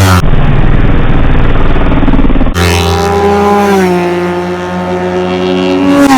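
Kawasaki Ninja sport bike passing at high speed. Loud, rough engine noise for the first two seconds, then a high, steady engine note that falls in pitch as the bike goes by near the end.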